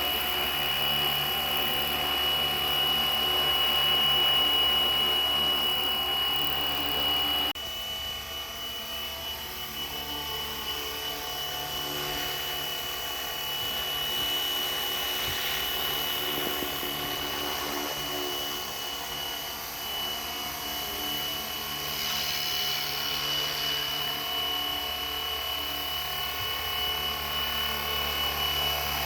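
Flywing Bell 206 V3 RC helicopter hovering: its electric motor and rotors run steadily, with a high whine over a buzz. About seven and a half seconds in the sound drops suddenly and continues a little quieter.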